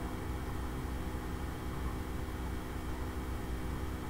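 Steady mechanical hum with several fixed tones and a low, wavering rumble underneath.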